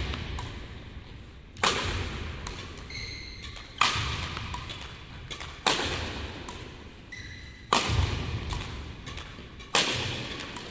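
Badminton racket striking shuttlecocks in a smash drill: five sharp cracks about two seconds apart, each echoing through the large hall.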